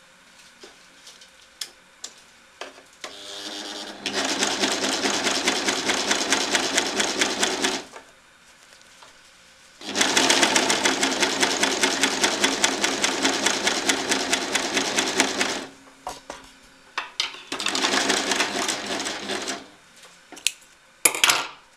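Overlock machine (serger) sewing an overlock seam along the edge of a fabric lining, in three runs of fast, even stitching: a few seconds in, a longer one in the middle, and a short one near the end. Small clicks come between the runs.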